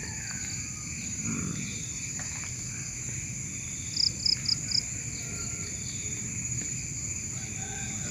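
Steady high-pitched chorus of crickets and other insects over a low, even rush. About four seconds in, a bird gives four quick high chirps.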